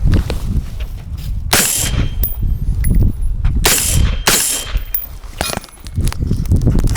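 Three gunshots from a suppressed AR-type rifle, the last two close together, each followed by a thin metallic ringing, over a low rumble of movement.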